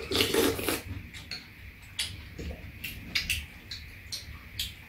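Two people eating dumpling soup: a slurp from a spoon at the start, then scattered light clicks of metal spoons and chopsticks against bowls.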